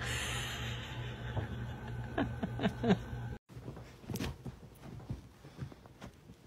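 About four short voice sounds in quick succession over a low steady hum, falling in pitch each time, then a quiet room with a few faint taps.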